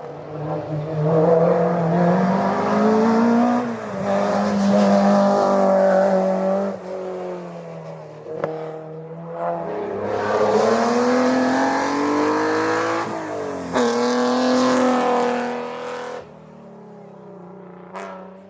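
Historic racing car's engine accelerating hard through the gears on a hillclimb: the pitch climbs, drops sharply at each upshift (about 4, 7 and 14 s in) and climbs again. Near the end the sound falls away and gets quieter as the car moves off.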